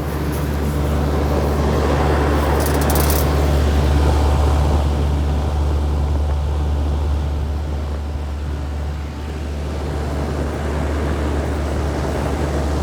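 Bard wall-mount heat pump running in cooling mode: a steady low hum from its Copeland scroll compressor under the rush of the outdoor fan's air. The level swells slightly a few seconds in and dips briefly around nine seconds in.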